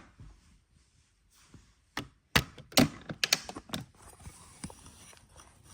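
A washing machine being handled: a quick run of sharp clicks and knocks about two seconds in, then a faint hiss, with another loud click at the very end.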